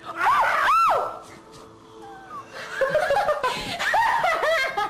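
Two short, high-pitched shrieks in the first second, then a person laughing in quick repeated bursts from about three seconds in, at a man who has fallen into deep snow.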